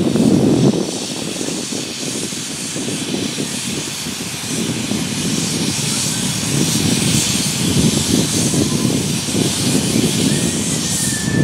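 A 15-inch gauge steam locomotive getting under way with its cylinder drain cocks open: a steady loud hiss of steam over uneven exhaust beats.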